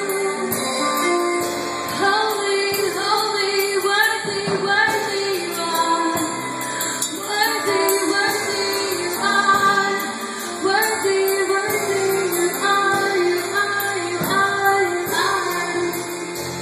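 Live church worship band playing, with a woman singing the lead melody over acoustic and electric guitars, violin, keyboard and drums.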